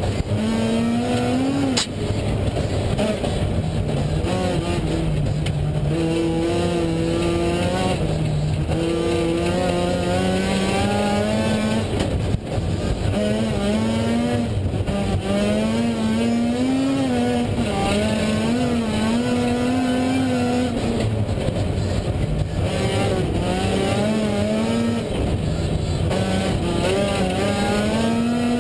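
Rally car engine heard from inside the cabin, driven hard: its note climbs and drops again and again as the driver shifts up and down through a sequential gearbox. A brief click and dip in the sound about two seconds in, and again about twelve seconds in.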